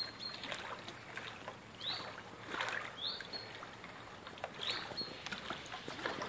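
Small waves lapping and clicking against the hulls of moored boats, with a high rising chirp that ends in a brief steady note, heard four times about a second and a half apart.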